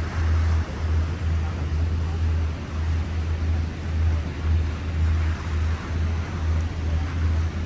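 Gusty wind buffeting the microphone on a cruise boat, over a steady rush of boat and water noise.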